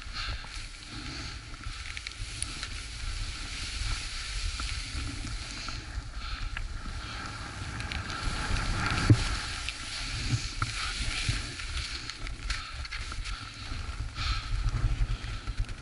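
Skis scraping and hissing over chopped mogul snow, with a thump about nine seconds in, over a steady rumble of wind on the microphone.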